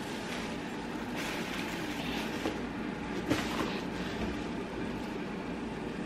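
Plastic shopping bags rustling and crinkling now and then as they are handled, over a steady low background rumble.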